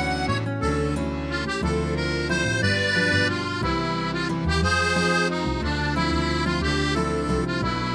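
Instrumental background music: a sustained melody moving through held notes over a steady bass line.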